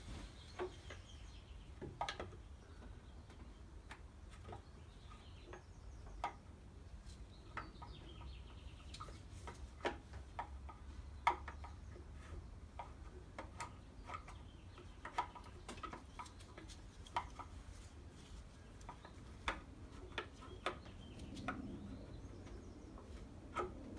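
Scattered light clicks and taps, irregular and a few seconds apart, as an LT1 Optispark distributor and its drive pin are worked into place by hand at the front of the engine. A faint low rumble runs underneath.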